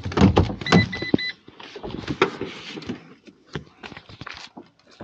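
Ram ProMaster van's driver door being unlatched and pushed open, with several sharp knocks and the van's warning chime beeping three times quickly about a second in. Another knock follows about two seconds in, then scattered light clicks.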